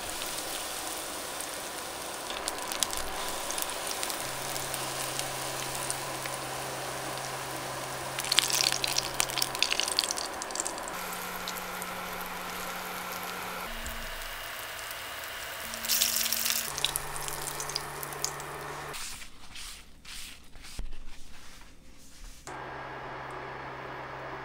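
Oil sizzling and crackling in a frying pan as breadcrumb-coated gimbap fries, with louder spells of crackling about a third and two-thirds of the way through.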